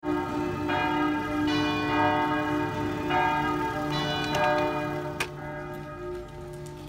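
Church bells tolling for a funeral: a new bell strike every second or so, each ringing on and overlapping the last. A sharp click about five seconds in.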